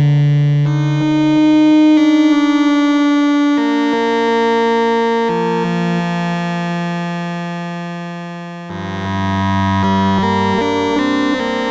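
Moog Spectravox analog synthesizer oscillator playing held notes through its filter, each note bright with many overtones. The pitch changes every second or few; one long note fades slowly, then quicker notes follow near the end.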